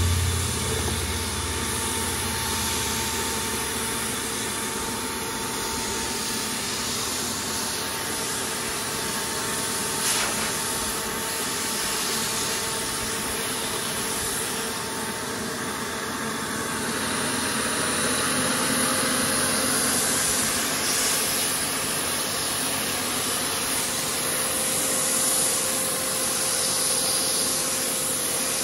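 Bosch HVLP paint sprayer running: the turbine in its base unit gives a steady rushing whine as paint is sprayed from the gun, the whine shifting slightly in pitch about two-thirds of the way through.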